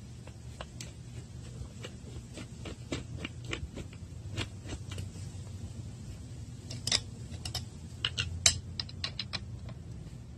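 Irregular small metal clicks and taps from a screwdriver being worked on the screws of a pit bike carburetor, with a few louder clicks past the middle. A steady low hum runs underneath.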